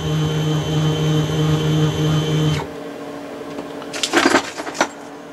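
Workshop machine motor running with a steady electric hum, switched off about two and a half seconds in. A few sharp metallic knocks and clatters follow near the end as the freshly cut part is handled.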